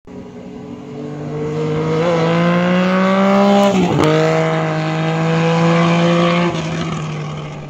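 A vehicle engine revving, its pitch climbing steadily, then breaking sharply about four seconds in and running on at a steadier, lower pitch before easing off near the end.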